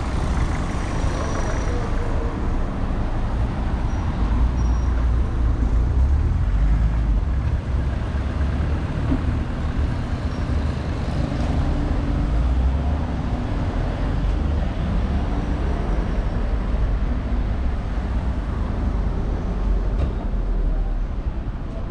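Road traffic on a town-centre street: cars and other vehicles passing with a steady low engine and tyre rumble that swells and eases as they go by.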